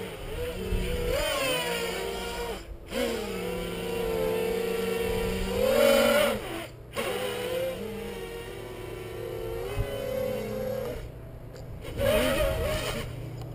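The brushless motors and propellers of a small 3D-printed Peon 230 quadcopter whining, the pitch sliding up and down with the throttle. The whine drops out sharply about three seconds in and again around seven seconds, and goes quieter for about a second near the end.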